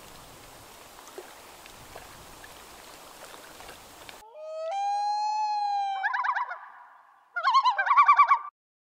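Faint background hiss with a few small ticks, then about four seconds in a common loon call: a long wailing note that rises and holds for nearly two seconds, followed by two bursts of quavering notes that stop abruptly.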